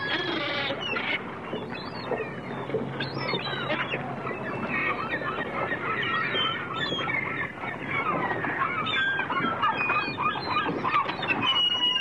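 A flock of gulls calling at once: many short squawks and cries overlapping one another.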